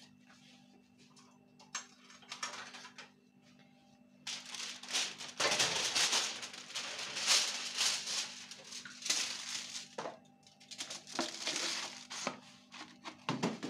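Sheet of Velvex aluminium foil crinkling and rustling in spells as it is pulled from its roll and pressed by hand into an oven tray. A few faint clicks at first, then loud crinkling from about four seconds in.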